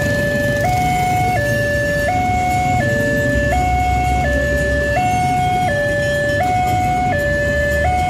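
Railway level-crossing warning siren sounding a steady two-tone hi-lo alarm, each pitch held about three-quarters of a second, as the crossing is closed for an approaching train. Low road-traffic noise runs underneath.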